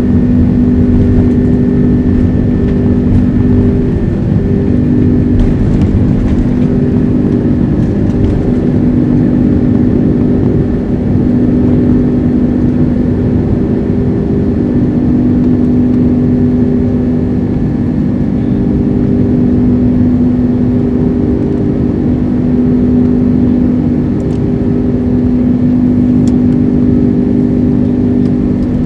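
Airbus A330-200's Rolls-Royce Trent 700 turbofan engines running at high thrust during takeoff and climb-out, heard inside the passenger cabin: a loud, steady roar with a constant engine drone.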